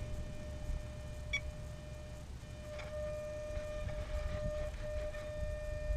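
A steady, high electronic tone, broken briefly about two and a half seconds in, over wind rumbling on the microphone.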